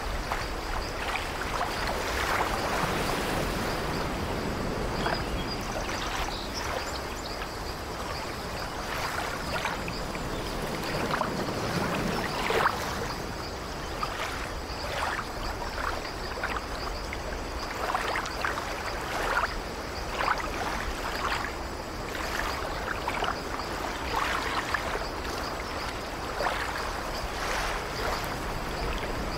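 Ocean surf: a steady wash of breaking waves, with frequent short splashes of water.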